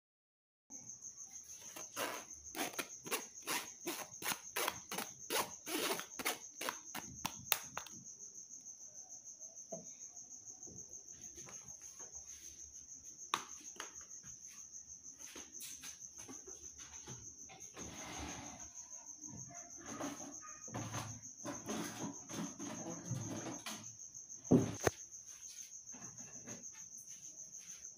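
Quick taps and scrapes on a metal kitchen sieve as blended lemon pulp is strained through it, about four a second for several seconds. Then sparse knocks of containers and utensils on a stone counter, one louder knock near the end. A steady high-pitched whine runs underneath.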